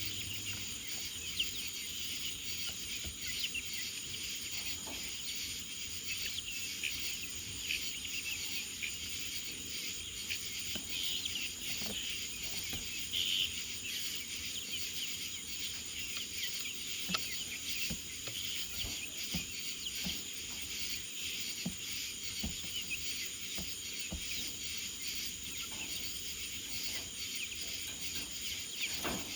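Steady, high-pitched chorus of night insects, with scattered faint clicks.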